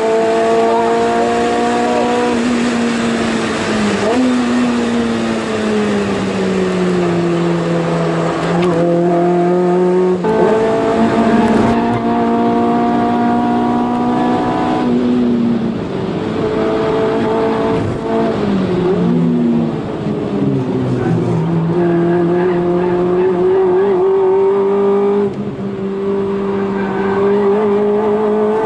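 Honda Integra Type R DC5's 2.0-litre four-cylinder engine heard from inside the cabin, driven hard on track. The engine note climbs with the revs and drops back several times as the driver changes gear and brakes for corners.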